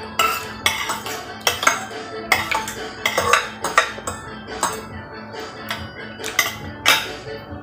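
Metal spoon and fork clinking and scraping against a plate, many sharp clinks at irregular intervals, over background music.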